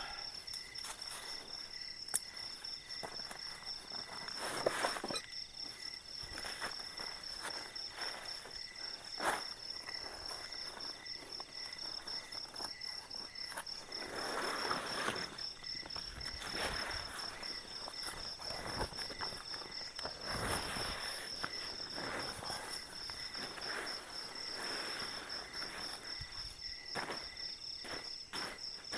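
A steady chorus of night insects, with one high, evenly pulsing trill, over intermittent rustling and crinkling as a sheet is spread out beside a tent and feet move through leaf litter. A single sharp click about two seconds in.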